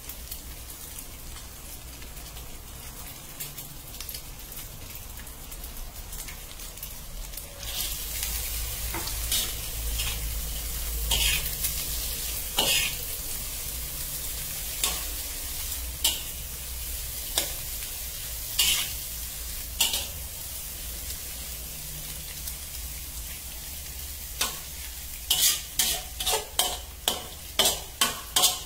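Egg and bean sprouts sizzling in a hot metal wok as they are stir-fried with a metal spatula. The sizzle grows louder about a quarter of the way in. The spatula scrapes and clanks against the wok now and then, and strikes quickly and repeatedly near the end.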